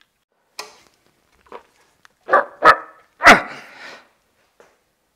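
A dog barking: a couple of faint sounds, then three loud barks in quick succession about two to three and a half seconds in, the last the loudest.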